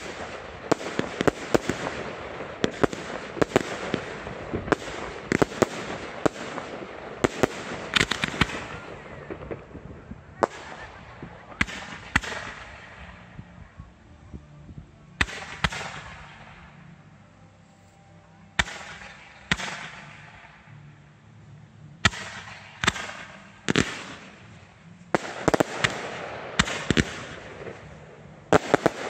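Fireworks fired without mortar shells: rapid sharp bangs over crackling. The shots thin to scattered reports around the middle, then come thick and fast again near the end.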